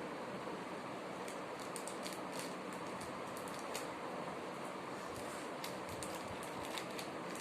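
Light, scattered clicks of small plastic toy parts and packaging being handled, over a steady background hiss.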